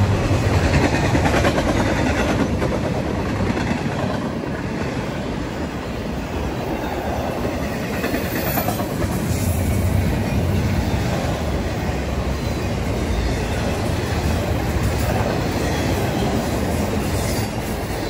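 Intermodal freight cars, flatcars with trailers and double-stack well cars, rolling steadily past: a continuous rumble of steel wheels on rail with clickety-clack over the rail joints.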